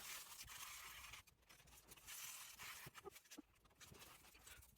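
Near silence: faint room hiss with a few soft ticks.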